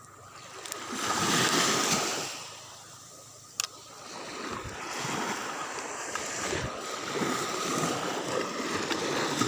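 Sea water splashing and sloshing, swelling briefly about a second in and then running on steadily, with one sharp click about three and a half seconds in.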